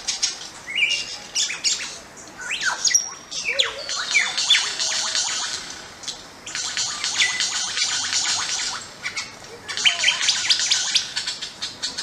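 Small birds chirping in a dense chorus, coming in bursts of two or three seconds with short lulls between, with a few sliding whistled notes among the chirps.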